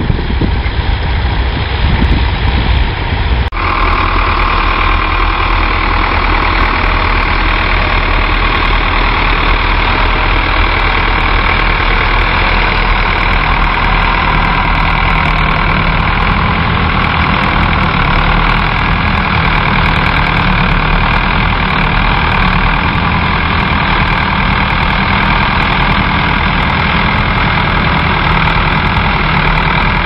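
Tractor engines at work ploughing: for the first three seconds or so a small red tractor, then a Ford tractor's diesel engine running steadily under load as it pulls a reversible plough.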